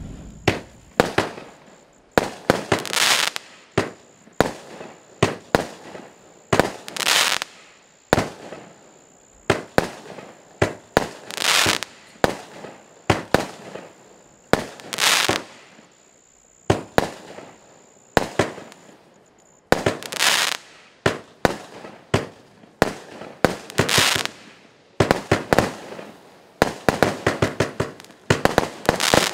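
Yakuza Miracle Maker 36-shot fireworks cakebox firing shot after shot, about one bang a second, many followed by crackling. The shots come thick and fast near the end as the cake builds to its finale.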